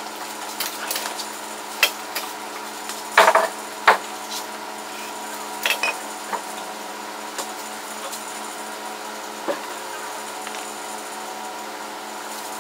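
Scattered wooden knocks and taps, the loudest a pair about three to four seconds in, as thick OSB table parts are handled and fitted together. A steady hum runs underneath.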